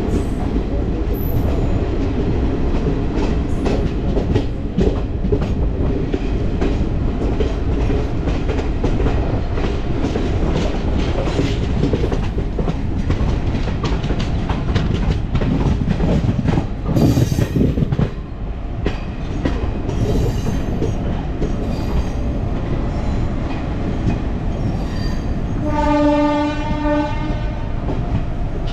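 A moving train at a railway platform: steady rumble with wheels clacking over rail joints, swelling louder briefly about two-thirds of the way through. Near the end, the locomotive horn sounds once for about a second and a half.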